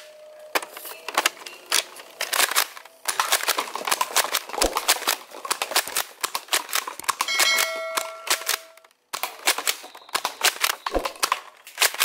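Crazy Launch multi-shot toy blaster firing soft bullets in rapid runs of sharp shots, with clacks of the bullets striking and knocking over stacked plastic cups. The firing breaks off briefly about three and nine seconds in, and a short ringing tone sounds a little past halfway.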